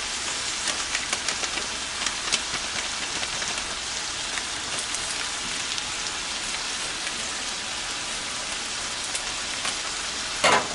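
Ground beef and kidney beans sizzling steadily in a stainless-steel skillet, with scattered crackling pops. A brief, louder burst of noise comes just before the end.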